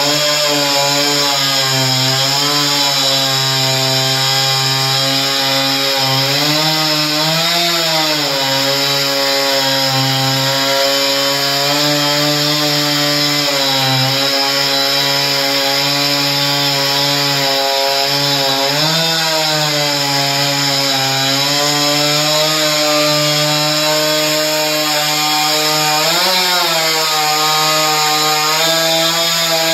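Husqvarna two-stroke chainsaw running under load as it cuts through a large roll of carpet, a steady engine drone whose pitch rises briefly three times.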